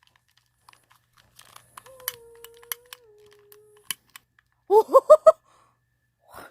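Scattered small clicks and crunches as something is handled and fiddled with. A person hums one steady note for about two seconds, and a quick run of short rising voice sounds follows a little past the middle.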